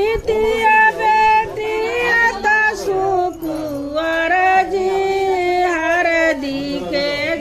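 A high voice singing a melody, gliding between long held notes.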